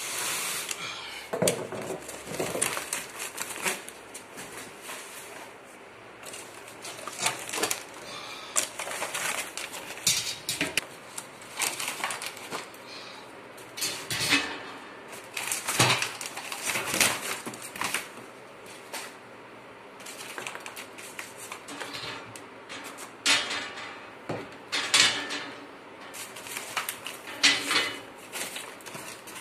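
Cast-iron Singer Merritt sewing machine stand parts clanking, with corrugated cardboard and plastic packing strap rustling, as the boxed stand is unpacked: irregular knocks and scrapes with short quiet gaps.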